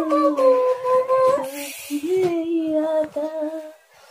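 A voice humming a slow tune in long held notes, which stops a little before the end.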